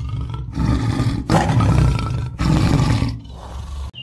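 Tiger roaring: a run of rough, deep roars about a second each, with short breaks between them and the last one quieter.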